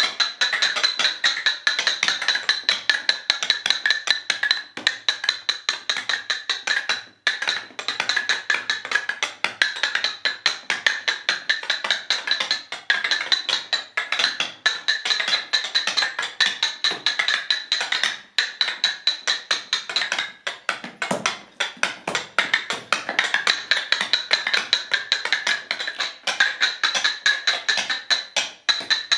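Rapid, dense clicking and tapping of paper firework tubes being knocked into hexagonal frames by hand, several workers at once, with brief pauses now and then.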